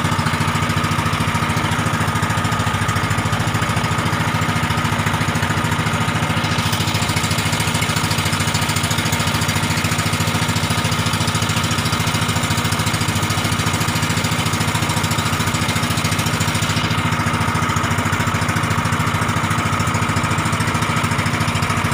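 A small engine on a wooden fishing boat running steadily at an even speed, an unbroken hum that neither rises nor falls.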